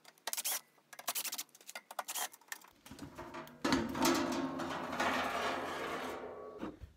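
Several clicks and knocks, then a cordless drill/driver running for about four seconds, backing screws out of the induction heater's sheet-metal cover, and stopping suddenly near the end.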